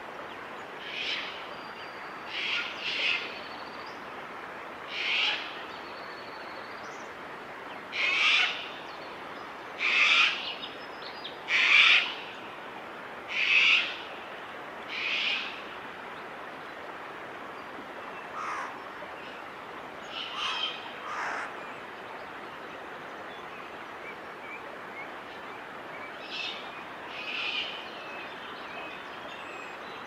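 Grey shrike-thrush at its nest giving a series of short, harsh calls, one every second or two. They are loudest in the middle, then come fainter and further apart towards the end, over a steady background hiss.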